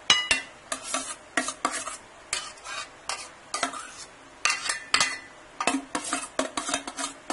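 Metal spoon scraping and clinking against a glass bowl as a wet vegetable salad is spooned out onto a plate: a string of short, irregular scrapes and taps, two or three a second.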